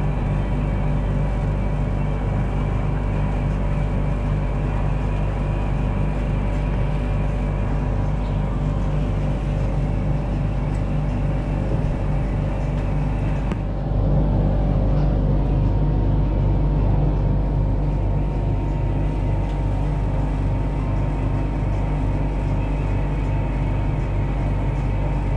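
Steady low machine hum inside an enclosed, air-conditioned Ferris wheel gondola, with a couple of faint steady tones running over it. About 14 seconds in, the hum shifts and gets slightly louder.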